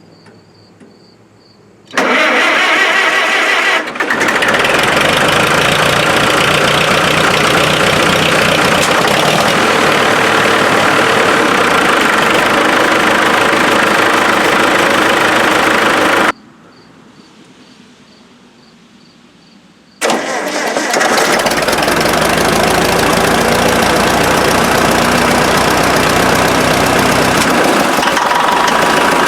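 Farmall gas-start diesel tractor engine running loudly, with the emblems and sheet metal vibrating. It comes in abruptly about two seconds in, falters briefly a couple of seconds later, then runs steadily. It cuts off suddenly about halfway through, and after a few quiet seconds a second engine run comes in.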